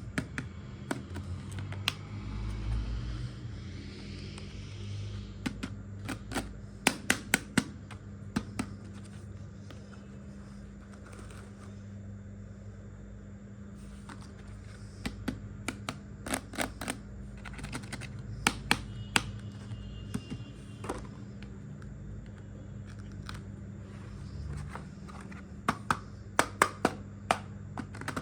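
Small hard miniature kitchen-set pieces clicking and tapping together as they are handled, in several quick clusters of sharp clicks over a steady low hum.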